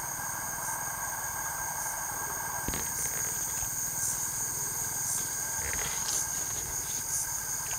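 Night chorus of crickets and other insects, a steady high-pitched trilling with a faint pulse about once a second. A single sharp click a little under three seconds in.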